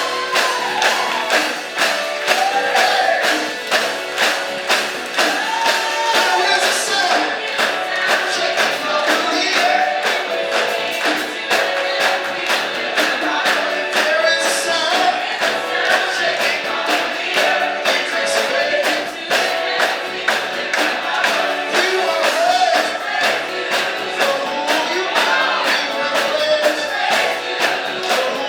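Upbeat gospel music: voices singing together over a fast, steady percussion beat with tambourine.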